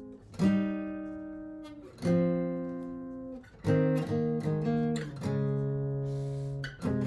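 Martin GPCPA4 acoustic guitar strumming chords, each struck once and left to ring out before the next, about every one and a half to two seconds.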